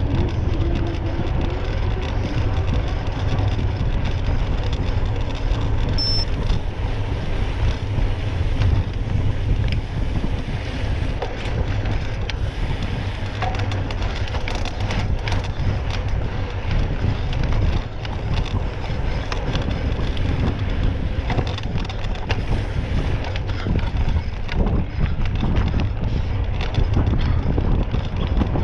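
Wind buffeting the microphone, a steady low rumble, with scattered light knocks and rattles.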